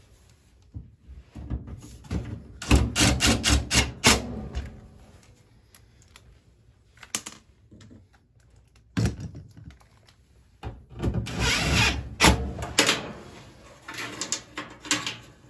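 Cordless drill-driver running screws into the dryer's sheet-metal cover in several short runs: one from about a second and a half to four seconds in, a brief one near nine seconds, a longer one from about eleven to thirteen seconds, and another near the end. Knocks of handling come between the runs.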